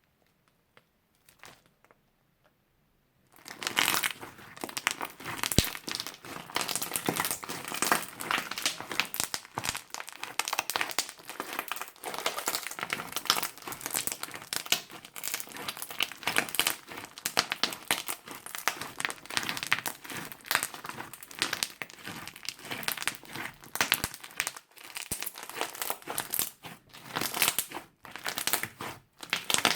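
Crunchy slime being squeezed and worked by hand, giving a dense, continuous crackling and crinkling made of many sharp little pops. It starts about three seconds in, after a near-silent start with a few faint clicks.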